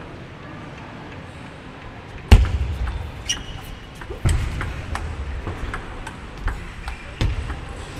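Table tennis rally: the ball clicking sharply and irregularly off bats and table, starting a little over two seconds in. Heavier thumps come with the first stroke and again around four and seven seconds, the first being the loudest.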